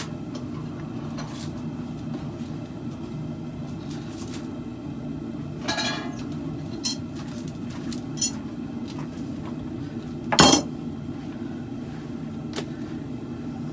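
Irregular metallic clinks and clanks of steel and tools being handled while forging a khopesh blade, over a steady low hum. The loudest clank comes about ten seconds in.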